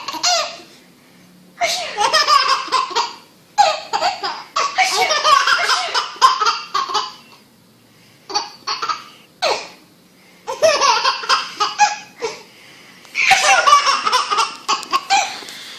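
Baby laughing hard in repeated bouts of belly laughter, each lasting a second to a few seconds, with short quiet pauses between them.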